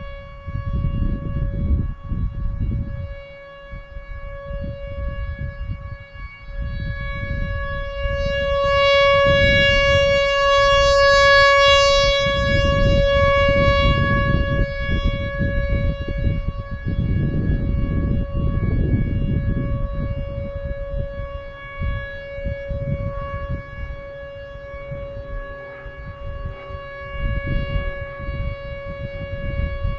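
Whelen Vortex R4 outdoor warning siren sounding its Alert signal: one steady, unbroken tone at about 560 Hz with many overtones, swelling louder about a third of the way in and easing off again toward the end. A low rumbling noise runs underneath it.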